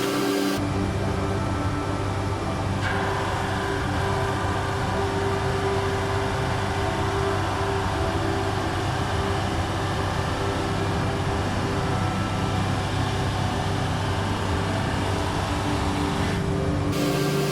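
A woodworking machine running steadily, a loud, even noise with a low hum, with abrupt changes about 3 s in and near the end where the footage is cut.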